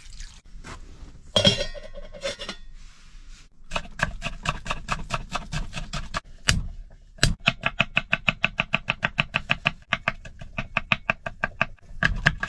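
A knife chopping quickly and steadily on a cutting board, about four strokes a second, each stroke ringing a little, after a few knocks and a clatter of kitchenware near the start.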